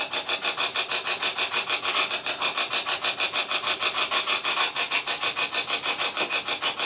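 Spirit box sweeping rapidly through radio stations: a steady, loud rasp of static chopped about nine times a second, used to pick out voices answering questions.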